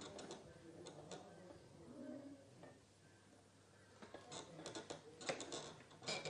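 Faint scattered clicks and rustles from two people moving on a bed, coming thicker in the second half, with a brief low murmur about two seconds in.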